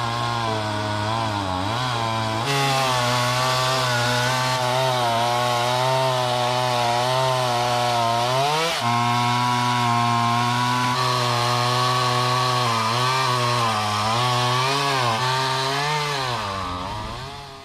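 Two-stroke chainsaw running at high speed, its pitch dipping and recovering several times as the engine loads and frees up, then fading out at the very end.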